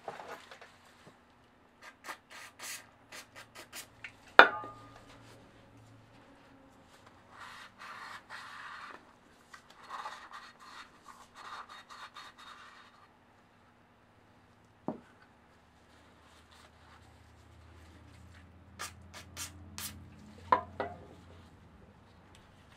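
A rag rubbing and wiping the inside of a metal moped wheel hub in stretches, with scattered clicks and knocks of metal parts being handled, the loudest a sharp knock about four seconds in.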